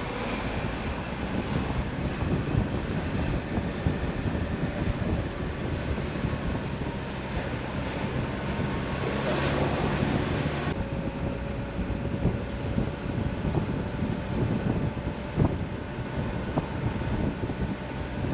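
Vehicle driving along a road, heard from inside: a steady low engine and tyre rumble with wind hiss. The higher hiss drops away abruptly about halfway through.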